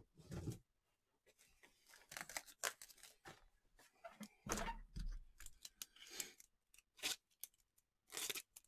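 Plastic packaging on a jumbo pack of trading-card top loaders being torn open and handled, in short irregular rustles and crinkles.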